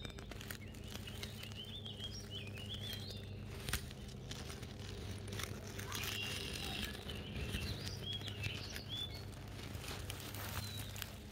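Small birds chirping and warbling, with dry grass and leaves crackling and rustling close by and a sharper crack about four seconds in. A low steady hum runs underneath.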